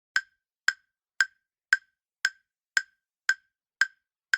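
Countdown timer sound effect: short, sharp ticks like a clock, evenly spaced at about two a second, nine in all.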